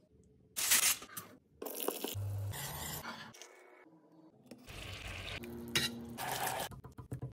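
A string of short kitchen sounds, in separate bursts of about a second each: metal pans and utensils clinking and scraping.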